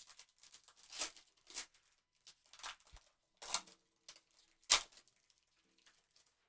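Plastic trading-card pack wrapper crinkling and tearing as it is opened and the cards handled with gloved hands: several short, separate rustles, the sharpest about three-quarters of the way through.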